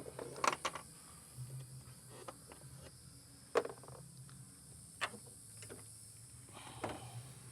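A few scattered sharp metallic clicks and knocks from hand tools working on a car battery terminal, over a faint low hum.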